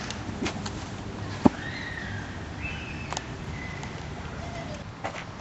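Steady outdoor background noise with a few short chirping calls and one sharp click about one and a half seconds in.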